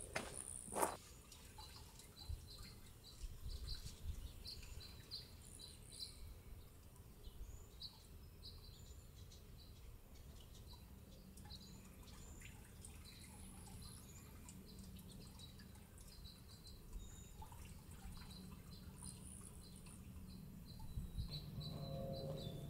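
Small birds chirping faintly in the background, short high chirps repeating on and off throughout.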